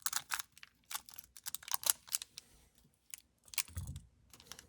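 Foil trading-card pack wrapper crinkling and crackling in short bursts as it is handled and cut at, with a soft dull thump just before four seconds in.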